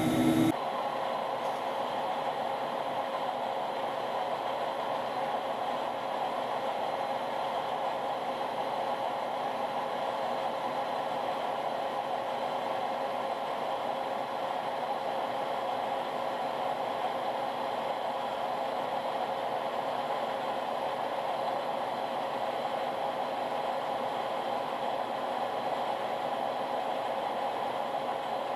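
Metal lathe running at a steady speed, spinning a bushing held between centers and driven by friction through folded emery cloth rather than a lathe dog. A steady, even machine hum with a few held tones that does not change.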